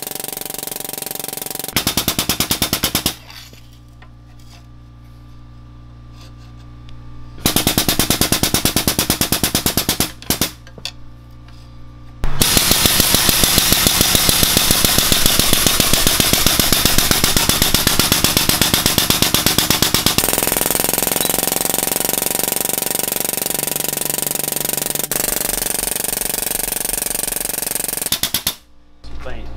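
Air-over-hydraulic pump on a pipe bender chattering rapidly as it drives the ram to bend steel tube. It runs in three bursts: a short one about two seconds in, another of a few seconds, then a long run of about fifteen seconds.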